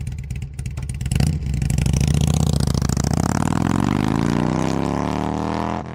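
Motorcycle engine idling, then revving about a second in and accelerating away, its pitch rising steadily through the last three seconds before cutting off.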